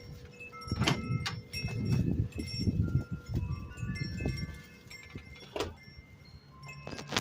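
Wind chimes ringing with scattered high notes, over irregular bursts of low rumbling noise and a few sharp clicks.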